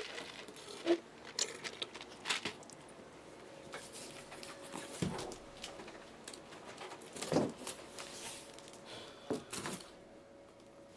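A sealed cardboard shipping case of card boxes is handled and turned over, giving scattered knocks, scrapes and rustles of cardboard. The strongest knock comes about seven seconds in.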